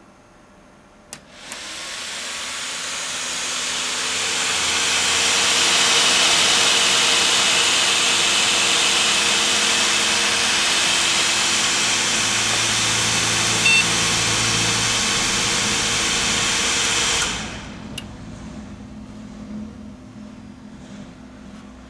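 MSI 9500GT graphics card's cooling fan, unbearably loud: after a click it spins up over a few seconds into a loud, steady whooshing hiss, holds for about ten seconds, then drops away suddenly, followed by another click and a faint hum. The fan has no speed control.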